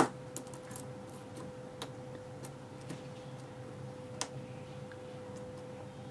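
Soft, scattered clicks of a lock pick lifting the pins of a Ruko oval cylinder under very light tension, with one sharper click at the start. A faint steady hum runs underneath.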